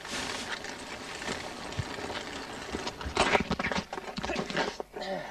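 Footsteps running on pavement beside a rolling child's bicycle, then a clatter of knocks about three seconds in as the bike tips over and falls onto the pavement with its rider.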